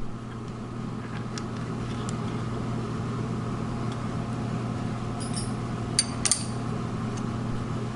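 Steady electric motor hum, most likely the fan set up to cool the spray-welded part. About six seconds in come two or three light metallic clicks as the carbide tool bit is handled in the lathe's tool post.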